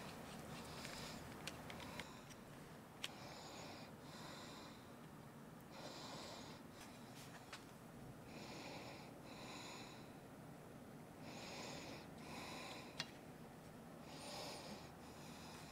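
A person's quiet breathing, soft hissy breaths every second or two, often in pairs. A few light sharp clicks come from small objects being handled.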